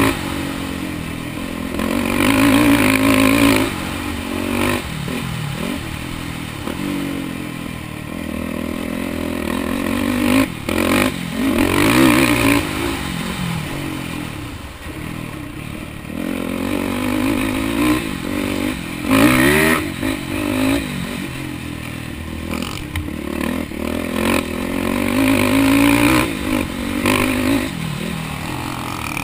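Yamaha quad bike's engine revving up hard and easing off again and again as it is ridden around a dirt track, its pitch climbing with each surge, along with clattering from the ride over rough ground.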